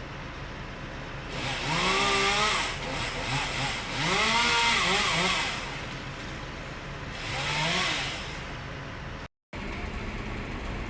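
Chainsaw revved three times, each rev rising in pitch and falling back, over a steady background hum. The sound drops out for a moment near the end.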